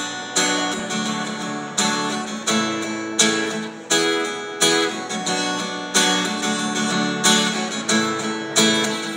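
Acoustic-electric guitar strummed in a steady rhythm, each accented chord attack coming about every 0.7 s, as the instrumental intro of a song.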